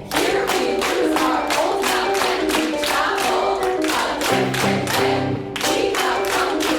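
Choir singing held notes over a fast, steady percussion pulse of about four or five strikes a second.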